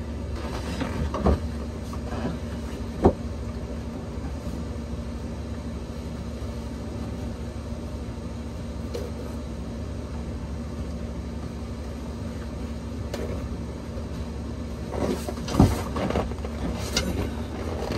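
Scattered knocks and clicks of a new oil filter and tools being handled while it is fitted to a boat's diesel engine, the sharpest about three seconds in and near the end, over a steady low hum.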